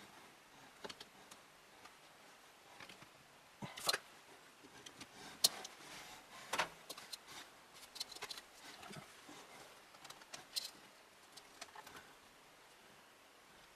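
Scattered light clicks, taps and knocks of hands handling computer fan and case parts. The sharpest come around four, five and a half, and six and a half seconds in.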